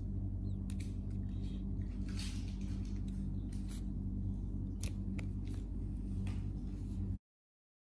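Kittens play-wrestling on towels in a plastic laundry basket: soft rustling with scattered light clicks and scratches over a steady low hum. Near the end the sound cuts out abruptly.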